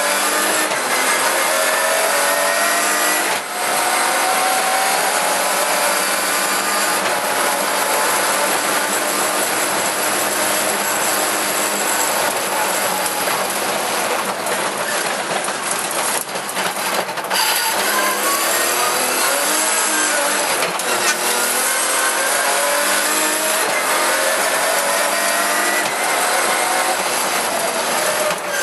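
Rally car engine heard from inside the cabin under hard acceleration: the revs climb again and again through the gears, with a brief drop at each gearchange. A cluster of knocks and rattles comes in the middle, and a little later the revs fall and then climb again.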